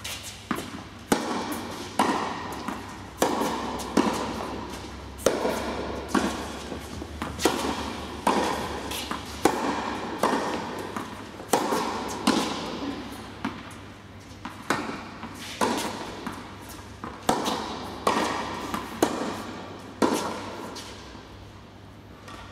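Tennis ball struck back and forth by racquets in a baseline rally, each hit a sharp pop with a bounce on the court between, echoing in an indoor tennis hall. The rally stops near the end.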